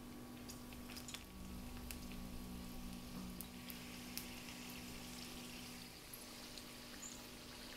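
Egg rolls frying in hot vegetable oil in a cast iron skillet: a faint sizzle with scattered small pops. The sizzle grows stronger a few seconds in as more rolls go into the oil.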